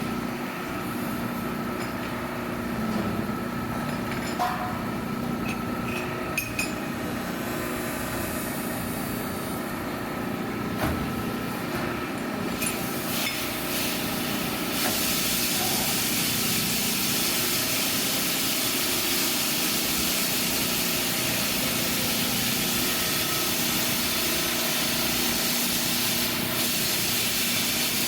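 Shop machinery running with a steady hum and a few sharp metal clicks. About halfway through, a loud steady hiss starts and carries on over the hum.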